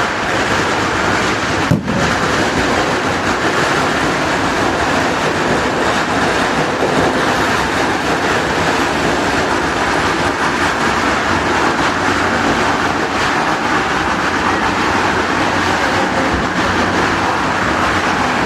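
Fireworks going off in a dense, continuous barrage, the bangs running together into one steady noise, with a brief drop about two seconds in.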